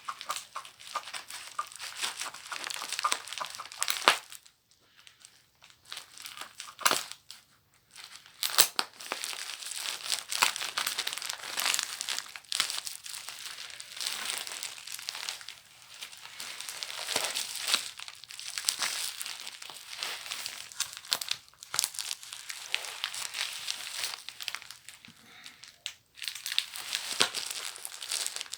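Paper packaging of a mail-order book parcel crinkling and tearing as it is opened by hand, in a dense, uneven rustle with sharp crackles. It drops away for a few seconds about four seconds in and again briefly near the end.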